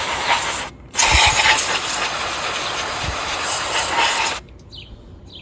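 Aerosol cleaner hissing out of a spray can onto the armature of a Singer 301 sewing-machine motor, washing carbon off it. There is a short spray, a brief break, then a longer spray of about three and a half seconds that stops suddenly.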